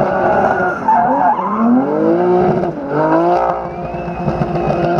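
Drift car's engine revving hard, its pitch climbing and falling back twice, while the spinning rear tyres skid and squeal. A steadier engine note follows in the last second or so.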